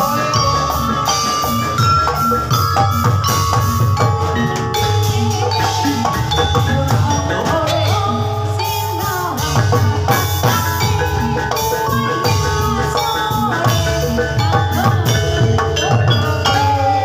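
Live gamelan accompaniment for a jathilan horse dance: struck metallophones and drums play a dense, steady rhythmic piece, with sharp high metallic strikes over it.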